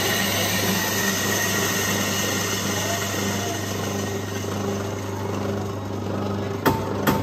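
Motor-driven coffee-processing machine running steadily, a low hum under a hiss, with a few sharp knocks near the end.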